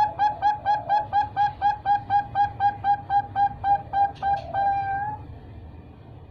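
Three-month-old Bangkok perkutut (zebra dove) calling: a fast, even run of short cooing notes, about five a second, ending a little before five seconds in with one longer held note.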